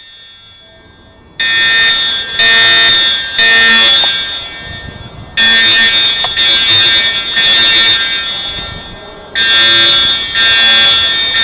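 EST Integrity fire alarm horns sounding the temporal-3 evacuation signal: a loud, buzzy horn tone in sets of three blasts that repeat about every four seconds, starting about a second and a half in. Each set fades out slowly rather than stopping dead.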